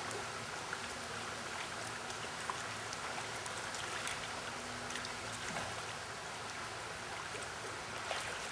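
Shallow river water running steadily over a riffle, a constant rushing with a few faint clicks and splashes.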